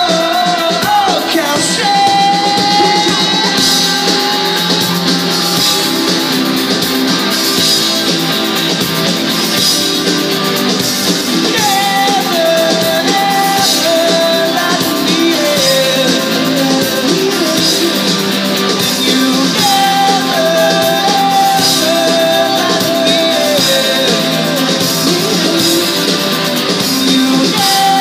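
Live rock band playing loudly: electric guitars, keyboard and drums with a sung lead vocal that comes in and out over a steady beat. The sound is thin in the bass.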